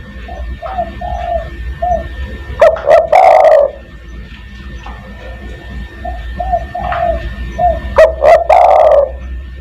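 Spotted dove (tekukur) singing its cooing song twice, each phrase a few soft short coos followed by one loud drawn-out coo.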